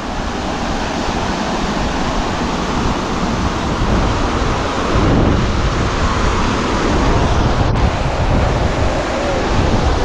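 Steady rush of river water pouring over the crest of a low concrete gravity dam's weir, mixed with wind buffeting the microphone.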